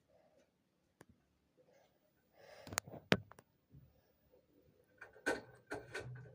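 Irregular knocks and clicks of objects tumbling inside a washing machine drum, with a cluster of several knocks near the end.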